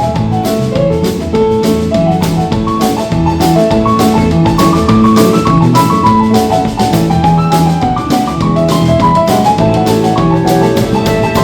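Live roots band music in a Cajun and New Orleans style: a piano plays a run of quick melodic notes over a bass line and a steady drum-kit beat.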